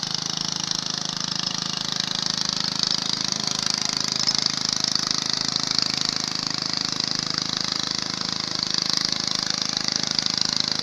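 Small engine running steadily at an even speed, with a steady high hiss over it.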